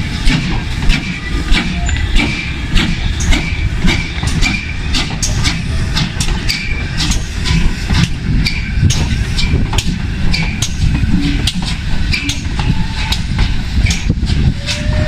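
Steam-hauled train rolling slowly past close by: a steady low rumble with a quick, even run of sharp clicks and knocks from the wheels over rail joints, and short faint squeals.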